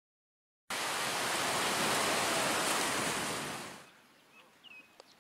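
A loud, even rushing noise like surf starts abruptly under a second in, holds steady and fades away after about three seconds, leaving faint outdoor ambience with a small chirp.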